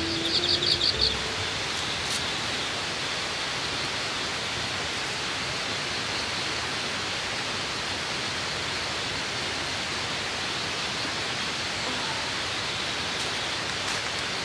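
Background music ends about a second in, leaving a steady, even hiss of falling water.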